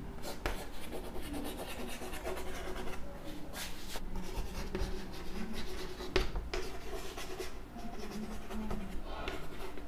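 Chalk writing on a chalkboard: soft scratching and rubbing strokes, with a few sharper taps as letters are formed.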